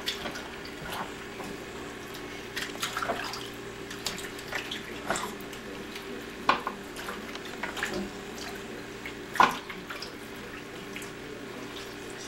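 Bathwater splashing and dripping in a small baby bathtub as a hand washes a newborn with a washcloth: scattered small, irregular splashes, with one sharper, louder splash about nine seconds in.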